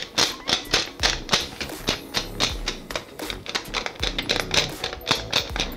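Wooden pepper mill grinding peppercorns: a quick, even run of crunchy clicks, about four a second, as the mill is twisted back and forth, over soft background music.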